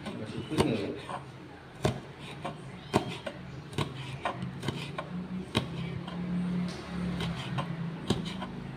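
Kitchen knife slicing red chillies on a wooden cutting board: irregular sharp knocks of the blade on the board, roughly one a second.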